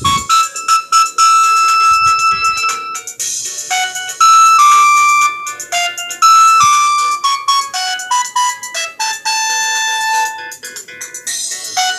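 Ringtone melody from the LG KG270's tone set, played through an LG CU500 mobile phone's speaker: a synthesized tune of short and held high notes.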